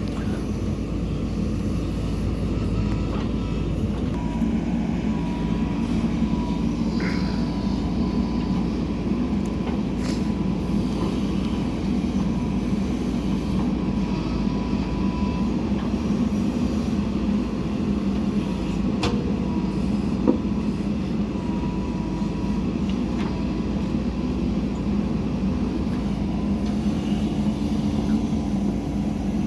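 JCB 3DX backhoe loader's diesel engine running steadily as it works loading mud, with a faint thin whine coming and going and a few light clanks.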